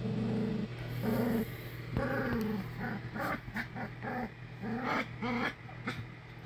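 English springer spaniel puppies whining and yipping: a longer whine at the start, then a quick run of short rising-and-falling cries, about three a second, through the middle. A steady low hum runs underneath.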